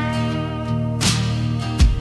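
Instrumental dark country music: sustained guitar notes with slide-guitar colouring over a deep bass beat, with a new chord struck about a second in and a low bass thump near the end.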